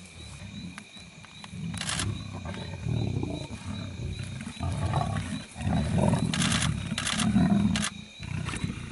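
A pride of lions growling as they jostle over a kill at close range, loudest about five to eight seconds in. A few short sharp clicks come through about two seconds in and again near the end.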